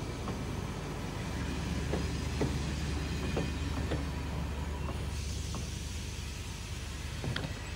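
Train pulling into a station: a steady low rumble with scattered clicks and knocks from the wheels and carriages, and a hiss that comes in about five seconds in.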